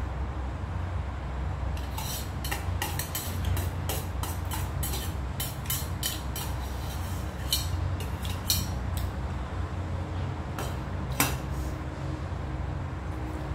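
Metal spoon clinking and scraping against a small stainless steel bowl, in a quick run of clinks for several seconds, then a couple of louder clinks as it scoops from a metal pan near the end. A steady low hum runs underneath.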